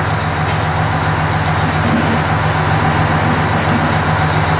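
Fire engine's engine idling steadily, a loud, even low hum.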